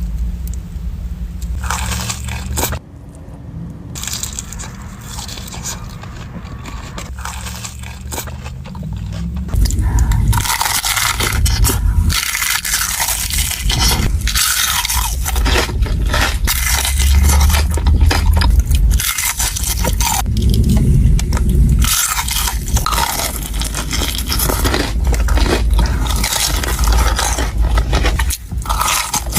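Close-miked eating of chicken: crisp crunching bites and chewing, densest and loudest from about a third of the way in. A low-pitched background tune runs under the first third.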